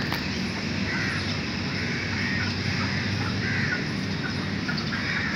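Faint, scattered bird calls over a steady background hiss and rumble.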